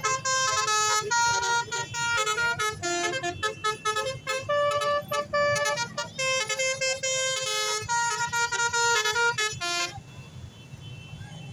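Tour bus's basuri 'telolet' horn playing a fast melody of sharp, stepped musical notes, stopping abruptly about ten seconds in.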